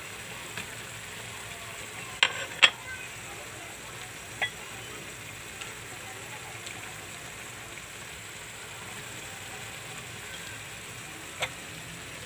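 Pork adobo simmering in a wok, a steady sizzling hiss, as cut yard-long beans (sitaw) are added. A few sharp clinks against the wok come about two seconds in, the loudest of them, with one more a couple of seconds later and another near the end.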